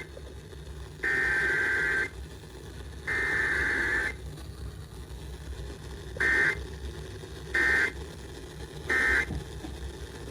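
Electronic beeps at one high pitch: two long beeps of about a second each, then three short beeps, over a steady low hum and hiss.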